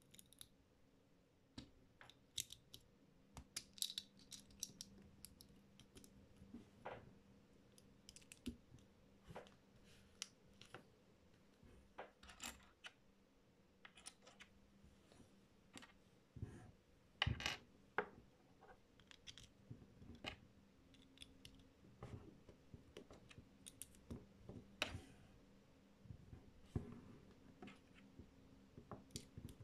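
Small plastic Lego pieces clicking and tapping against a tabletop and each other as they are picked up and pressed together: scattered faint clicks, with one louder click a little past the middle. A faint steady low hum runs underneath.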